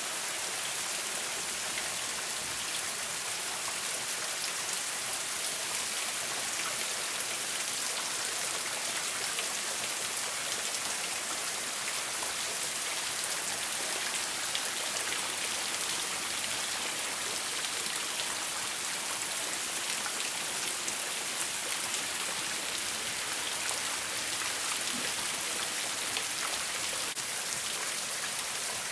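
Heavy rain falling steadily, a dense even hiss of drops hitting surfaces with fine individual drop ticks throughout.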